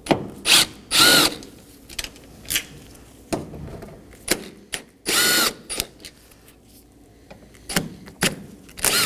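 Power driver with a T30 Torx bit spinning out the door lock actuator's screws in two short bursts of motor whine, with sharp clicks of tool and screws between them.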